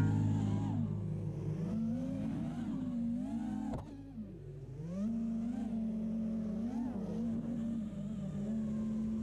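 Brushless motors and 5-inch propellers of an FPV freestyle quadcopter whining, the pitch rising and falling again and again with the throttle. There is a short click and a dip in level about four seconds in.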